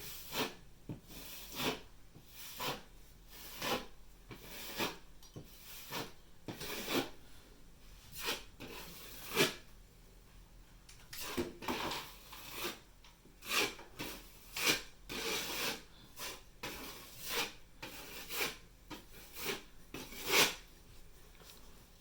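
Repeated short scraping and rubbing strokes, roughly one a second and uneven in strength, with a few louder ones. These come from hands-on work with tools and parts during a ceiling fan installation.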